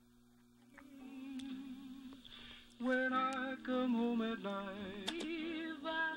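Music playing back from an 8-track cartridge on a Telex TMS1001 12-cartridge changer: a song fades in about a second in, and a singing voice enters loudly about three seconds in.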